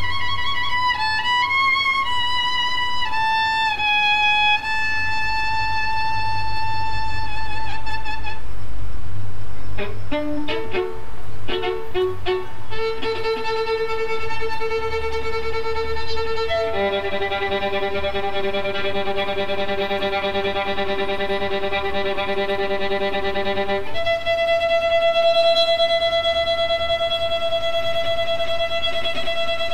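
Solo violin playing slow, long-held notes with vibrato, stepping down in pitch over the first few seconds. A run of short notes comes about ten seconds in, then several notes sound together as a chord, and it ends on one long held note.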